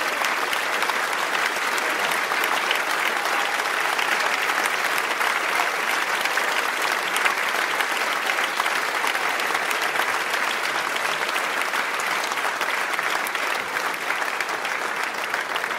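Audience applauding steadily: many hands clapping in a dense, even patter, with laughter mixed in.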